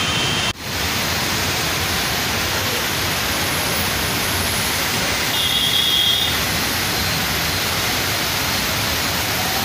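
Heavy rain and floodwater rushing across a street, a steady even roar of noise. The sound cuts out for an instant about half a second in, and a short high tone sounds around the middle.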